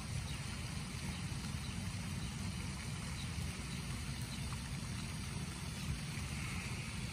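Steady outdoor ambience: a low, even rumble with a fainter steady hiss from the pond's spray fountain splashing.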